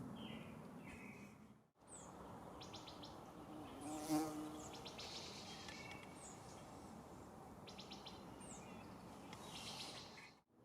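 A flying insect buzzes loudly close past the microphone about four seconds in, over a steady outdoor hiss with faint high bird chirps and trills. The sound drops out briefly twice, near the start and near the end.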